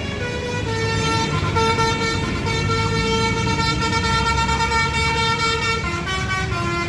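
Agra Mas bus's telolet basuri musical horn playing a tune of long held notes that shift lower near the end, with the bus engine running underneath.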